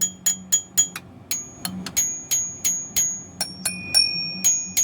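Engine belt-drive pulleys struck again and again with a metal tool, about four taps a second, each tap ringing with a clear metallic tone; the ring's pitch changes a little over three seconds in as a different part is struck. It is a ring test of the pulleys, where a pulley that doesn't sound right is suspect.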